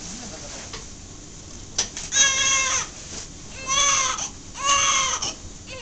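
Newborn baby crying: three short, high-pitched wails in quick succession, beginning about two seconds in.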